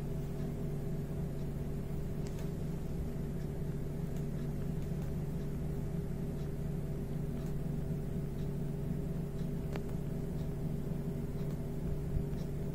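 A steady low machine hum that holds the same pitch throughout, with a few faint light clicks.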